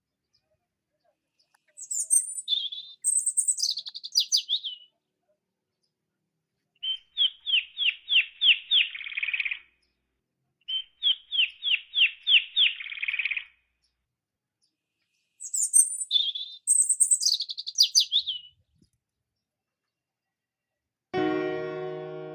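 A songbird calling in four short phrases with clean silence between them. The first and last phrases are high chirps falling in pitch; the middle two are quick runs of repeated notes, about four a second. Piano music comes in near the end.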